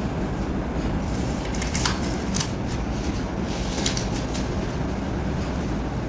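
Steady low rumbling background noise, with a few brief rustling clicks about two seconds and about four seconds in.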